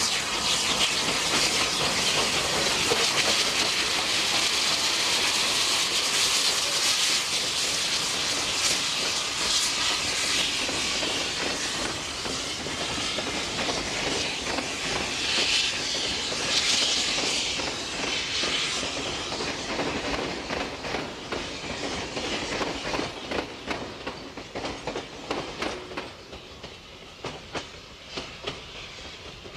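NSW 38 class steam locomotive 3801 and its carriages passing close by: steam hiss and wheels clicking over the rail joints, the sound fading away through the second half as the train moves off.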